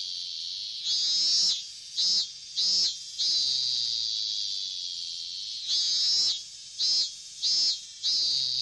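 A short synthetic sound effect played over and over: three brief bright chirps, then a long high shimmering tone that slowly fades. The pattern repeats about every five seconds.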